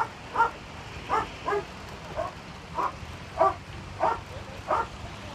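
A dog barking over and over in an even rhythm, about one bark every two-thirds of a second.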